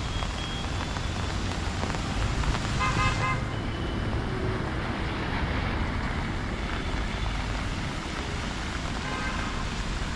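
City street traffic on wet roads: a steady rumble of vehicles with a short car horn toot about three seconds in, and a fainter horn near the end.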